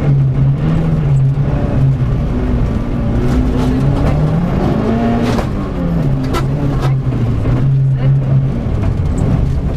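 Mitsubishi Lancer Evo IV's turbocharged four-cylinder engine heard from inside the rally car's cabin, running at steady revs, then revving up about halfway through and dropping back. A few sharp knocks follow soon after.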